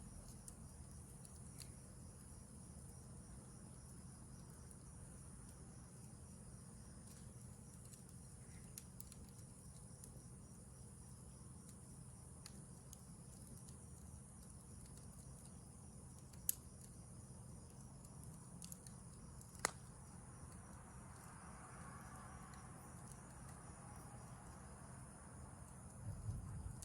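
Faint steady chirring of crickets and other night insects, with scattered small crackles from a campfire and two sharper pops about two-thirds of the way through.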